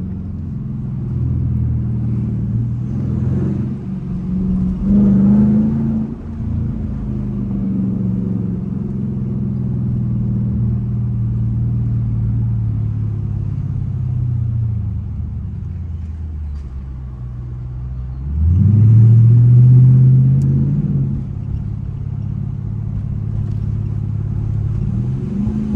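Straight-piped 5.7-litre HEMI V8 of a 2021 Dodge Durango R/T, heard from inside the cabin: a deep, steady exhaust drone while cruising. There is a brief throttle blip about five seconds in, a falling pitch as it slows, and then a louder acceleration with rising pitch about three quarters of the way through.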